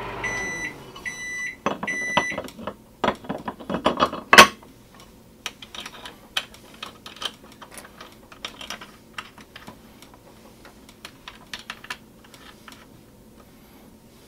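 A microwave oven stops its hum and beeps three times, then aluminium bait-mold halves and parts clack and knock together as they are fitted. There is one loud knock about four seconds in, followed by lighter clicks and rattles.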